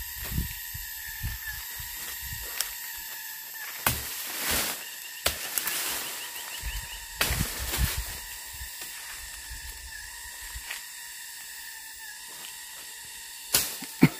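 Rustling and crunching through dry leaf litter and undergrowth, with a few sharp machete strokes, over a steady high drone of rainforest insects.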